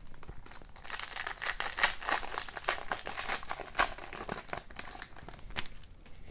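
Shiny foil wrapper of an O-Pee-Chee Platinum hockey card pack crinkling and tearing as it is ripped open by hand: a dense crackle of sharp crinkles that starts about half a second in and stops shortly before the end.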